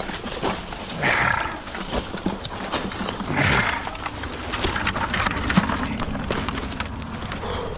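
Dry brush and twigs crackling and snapping as a person climbs a steep, overgrown bank, with two heavy, breathy exhalations, about a second in and again about three and a half seconds in.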